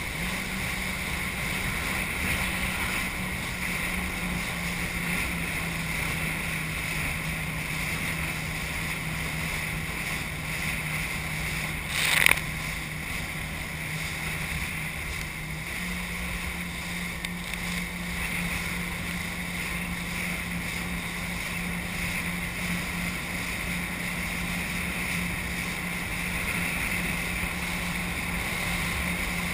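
Jet ski engine running steadily at speed, with rushing water and wind over the microphone. There is one sudden loud thump about twelve seconds in, and the engine pitch rises slightly a few seconds after that.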